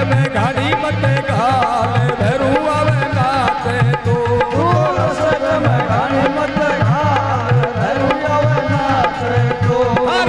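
Amplified live Rajasthani devotional song: a man's voice singing a wavering melody over a droning harmonium, with a dholak drum keeping a steady beat.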